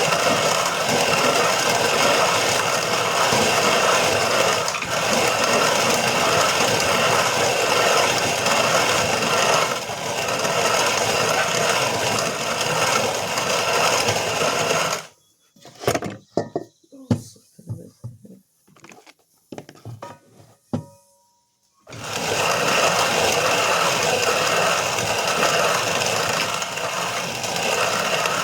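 Hand-cranked grain mill grinding kamut grain into flour: a steady, dense grinding noise. It stops for several seconds in the middle, where only a few knocks and clicks are heard, then starts again.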